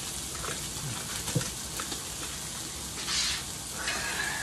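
Sausage patties sizzling in a frying pan, a steady fine crackle with scattered small pops, and a short rustling hiss about three seconds in.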